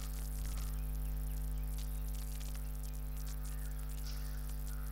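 Steady electrical mains hum with a buzz of overtones in the recording, with faint scattered ticks.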